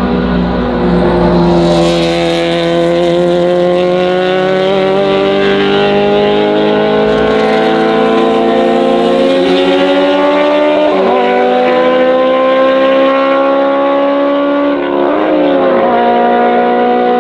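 Race car engines at full throttle, the note climbing steadily as they accelerate, dropping sharply at upshifts about eleven and fifteen seconds in.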